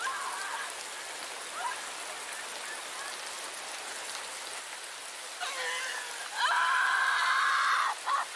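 Steady rain falling throughout, with faint short shouts early on. About five and a half seconds in, a woman lets out a long, high, anguished scream lasting over two seconds, the loudest sound here.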